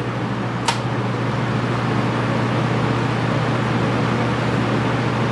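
Early-1980s Torcan 50 cm five-blade box fan running loud on its high speed: a steady rush of air over a low motor hum, growing a little louder over the first couple of seconds as it comes up to speed. A single sharp click sounds less than a second in.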